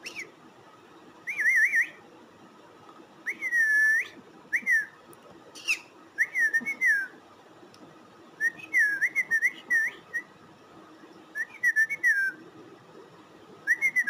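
Green-cheeked conure whistling in short warbling phrases of rising and falling notes, in bursts every second or two with pauses between.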